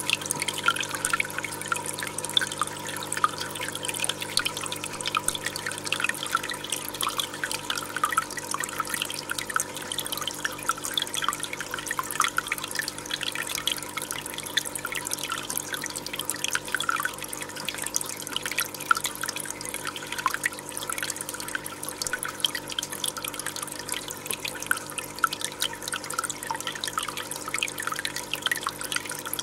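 Water trickling and bubbling with many small crackling pops, over a steady low hum that begins to pulse about six seconds in.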